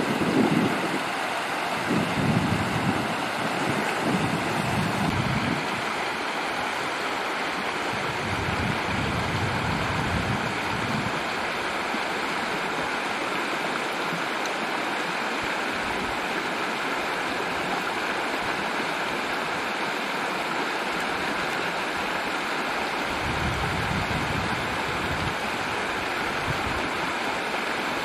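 Steady rush of a mountain stream, with wind buffeting the microphone in low gusts a few times.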